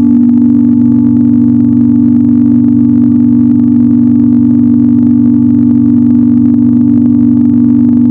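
Loud, steady droning warning-alarm tone held at one low pitch, with no rise, fall or pulsing.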